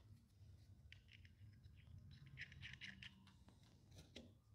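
Faint small clicks and light scraping of an air fitting being threaded by hand into a pneumatic push-button air valve, with the ticks bunched together in the middle.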